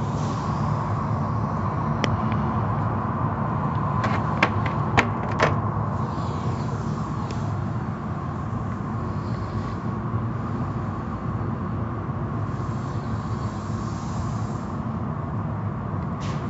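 Automatic tunnel car wash heard from inside the car: a steady rush of water spray and wash machinery, with a cluster of sharp knocks on the car about four to five seconds in.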